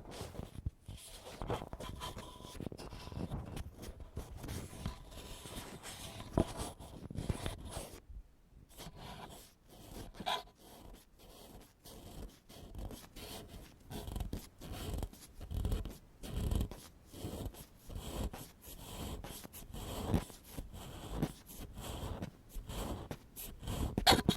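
Ear pick scraping and scratching on a microphone in ASMR ear-cleaning, a rough, fairly loud run of quick irregular scratchy strokes, with a brief pause about eight seconds in.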